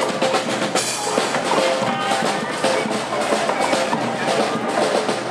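Street band playing: snare and bass drums beating fast over held horn notes.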